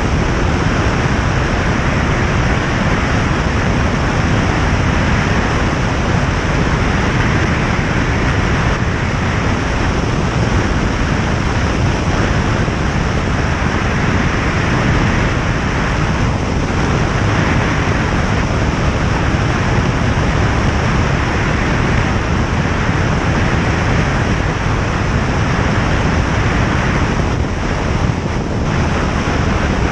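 Single-engine light aircraft in flight: a steady, loud drone of engine, propeller and rushing air, unchanging throughout.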